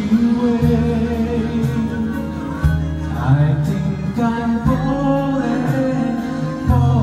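A man singing into a handheld microphone over a backing track, with bass notes held underneath and changing every second or two.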